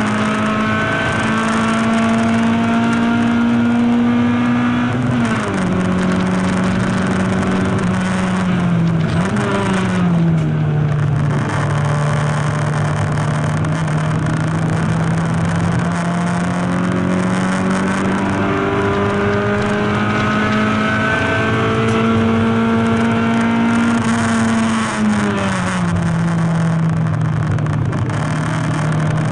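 Race car engine heard from inside its stripped, caged cabin at full racing pace, with road and wind rush. The engine note climbs slowly under power, falls twice, early on and again about 25 seconds in, and otherwise holds a long steady pull.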